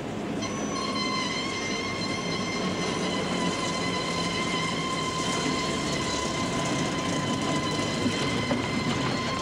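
DSB's small shunting tractor no. 57 running along rails, a steady low rumble with a steady high-pitched whine that sets in about half a second in and holds.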